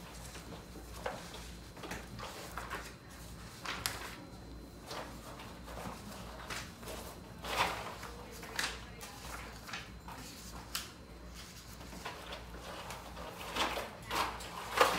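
Kitten playing inside a wire crate: irregular light knocks, clatters and rustles of the wire bars and the cardboard box. The sharpest knocks come about halfway through and near the end.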